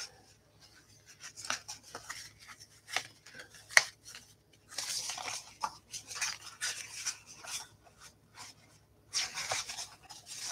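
Stiff cardstock being handled and folded by hand: paper rustling and rubbing in two longer stretches, with a few sharp clicks and taps as the pieces are pressed together.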